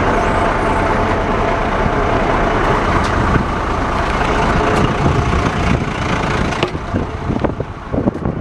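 Vacuum truck running, a loud steady machine noise with a faint hum in it. The noise thins out and turns uneven in the last couple of seconds.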